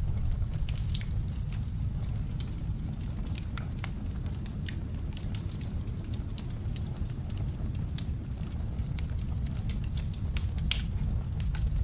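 Wood fire crackling in a fireplace, with scattered sharp pops and one louder pop near the end, over a steady low rumble.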